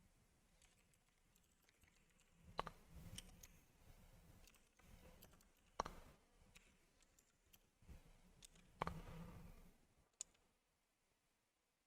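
Scattered computer keyboard clicks: a few sharp keystrokes with short stretches of softer tapping between, in an otherwise near-silent room.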